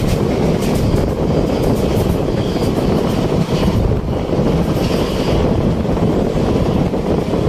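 Passenger train running at speed, heard at an open coach window: a steady rumble of wheels on the track mixed with wind buffeting the microphone.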